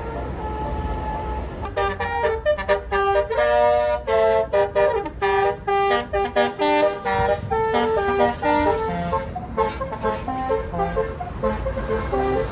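A tour bus's telolet Basuri multi-trumpet air horn playing a fast melody of short notes, starting about two seconds in and lasting about nine seconds, over a low engine rumble.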